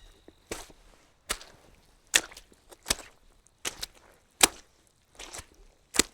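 Slow, even footsteps, a short sharp step sound about every 0.8 seconds.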